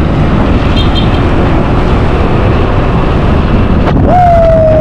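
Wind rushing over the microphone and the drone of a motorbike riding along a road. Near the end a single held tone rises in, holds for about a second and a half, and falls away.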